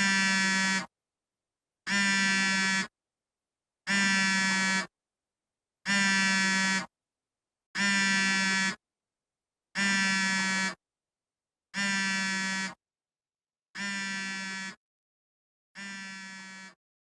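iPhone vibrating for an incoming call: a low buzz in pulses about a second long, one every two seconds with silence between. There are nine pulses, and the last few fade away.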